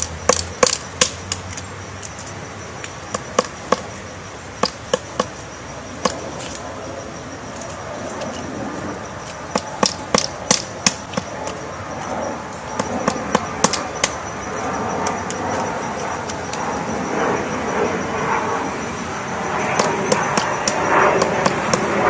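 Pileated woodpecker chiselling into a tree trunk with its bill, excavating a large cavity. It makes sharp, hard knocks in short irregular bursts of a few strikes with pauses between. Background noise grows louder over the second half.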